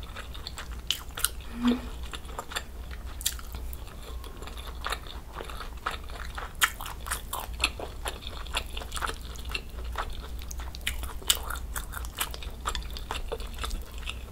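Close-miked chewing of soft rolled egg omelette: an irregular run of small wet clicks and mouth smacks.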